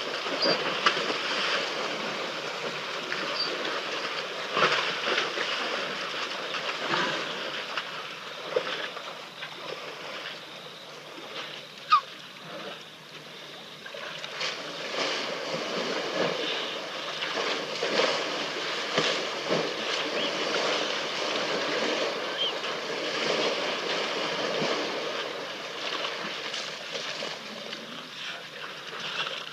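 African elephants sloshing and splashing in a muddy waterhole: a steady wash of water and mud noise broken by many small splashes. A few brief high chirps and one sharp sudden sound about twelve seconds in.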